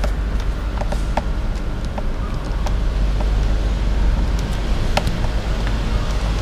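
Steady low rumble of background noise, with a few light, sharp clicks of a hand screwdriver working a screw on the scooter's plastic windscreen and front panel.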